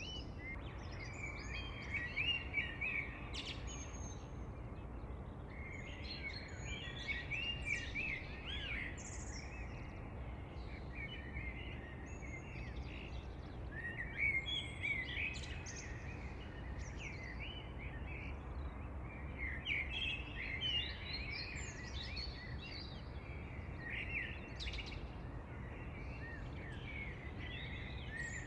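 Songbirds singing, short chirping, warbling phrases that come and go every few seconds, over a steady low background rumble.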